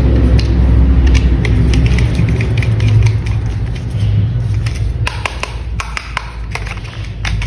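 Plastic toy parts clicking and tapping as they are handled and snapped together, the clicks coming thicker in the second half, over a low steady rumble that fades after about four seconds.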